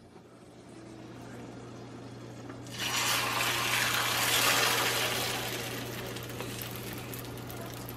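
Beaten egg and spinach poured into a stainless frying pan of hot oil, sizzling loudly from about three seconds in and then slowly dying down. A steady low hum runs underneath.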